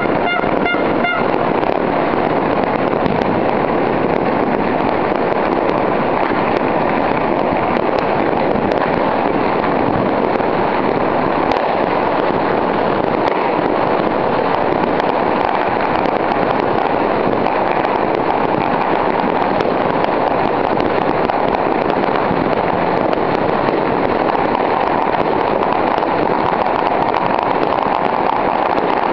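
Citywide New Year's barrage of firecrackers and fireworks: countless small pops and crackles from every direction blend into one steady din.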